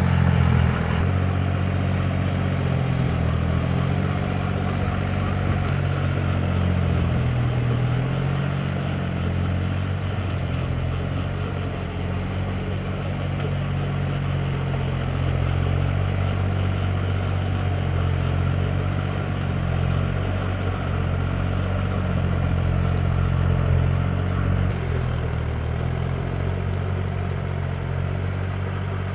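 Compact tractor's diesel engine running steadily under load as it pulls a rear rotary tiller through a flooded rice paddy.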